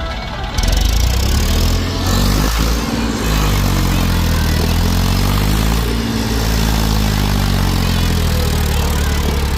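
A heavy vehicle's engine running loud and working hard, its pitch rising and falling as it revs. It comes in suddenly about half a second in.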